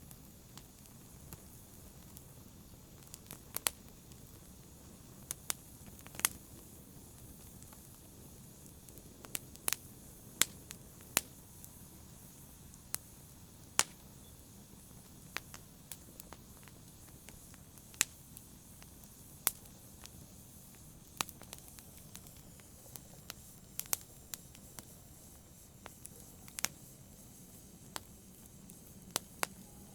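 Wood fire crackling in a fireplace: irregular sharp pops and snaps, a few of them loud, over a low steady hiss.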